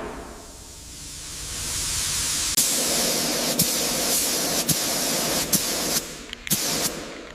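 Steady hissing spray that builds up about two seconds in and fades near the end, with a sharp tick about once a second.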